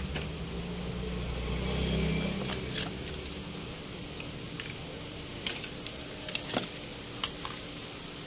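Pork and pork innards sizzling and simmering in a wok in freshly added vinegar: a steady hiss with scattered small pops and crackles. A low hum fades out over the first few seconds.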